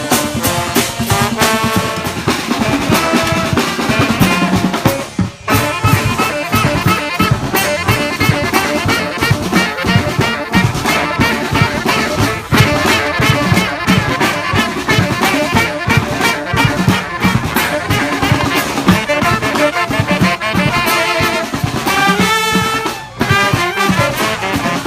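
A brass street band playing: horns over a steady drum beat, with two short breaks, about five seconds in and near the end.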